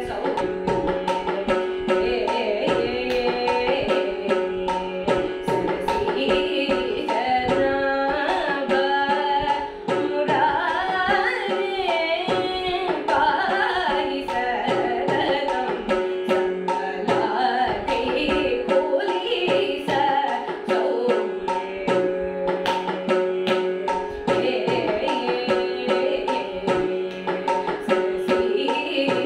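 A young woman's voice singing a Carnatic kriti, gliding between notes over a steady drone, with a hand-drum accompaniment keeping the beat.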